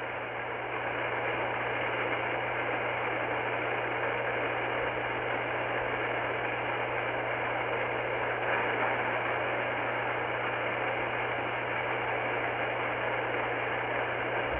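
Steady hiss of open-channel static from an Icom R30 receiver's speaker, tuned to 27.385 MHz lower sideband with no station transmitting, over a low steady hum.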